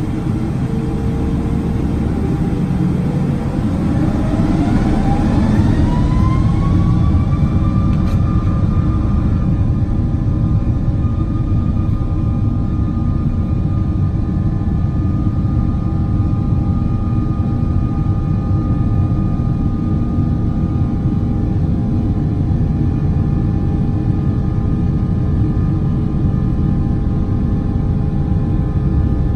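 Boeing 777-300's Rolls-Royce Trent jet engines heard from inside the cabin over the wing, spooling up to takeoff thrust: a whine rises in pitch over several seconds, then holds steady. Under it, a loud steady rumble continues as the jet rolls down the runway on its takeoff run.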